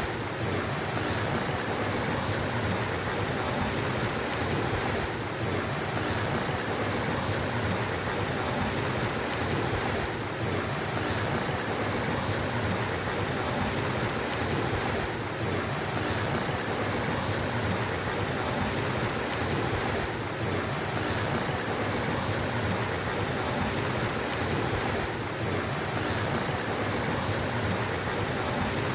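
Flowing water of a mountain stream, a steady unbroken rush, with a slight brief dip in level about every five seconds.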